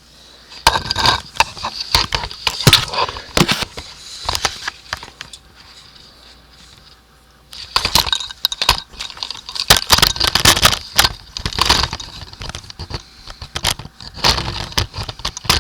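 Handling noise from an oil change: two spells of rapid clicking, scraping and rattling from tools and parts being moved and set down, with a quieter stretch in the middle.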